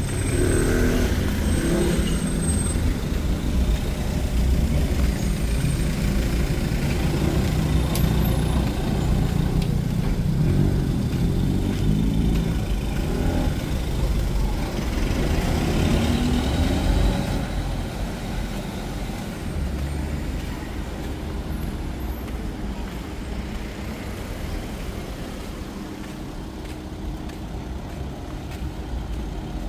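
Road traffic rumble, a heavy vehicle passing close by, dying down about two-thirds of the way through to a quieter background hum.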